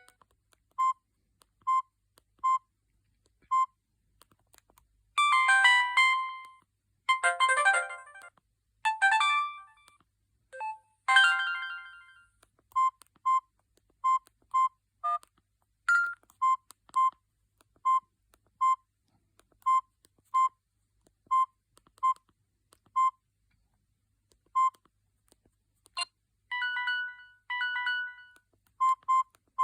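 Samsung GT-E1080i mobile phone playing short ringtone previews through its small speaker, each melody cut off after a second or two. Between the previews come single short beeps, typical of key tones as the ringtone menu is scrolled.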